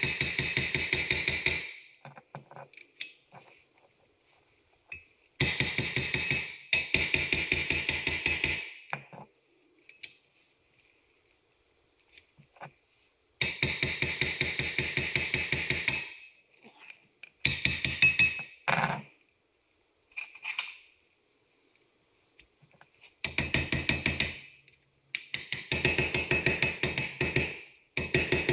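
Impact wrench hammering in repeated bursts of one to three seconds, about eight in all, with brief pauses between, working the wheel nuts and studs of a Toyota Hiace 4x4 hub.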